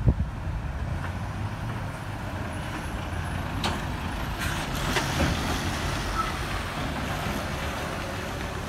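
Diesel engine of a red Iveco Stralis articulated lorry hauling a shipping container, running at low speed as it passes close by and turns. A brief buffet of wind on the microphone at the start, and a couple of short sharp clicks about four and five seconds in.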